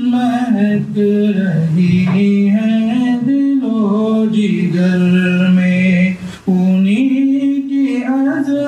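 A man singing a naat, an Urdu devotional poem in praise of the Prophet, unaccompanied, in long drawn-out melodic phrases with a short break for breath about six seconds in.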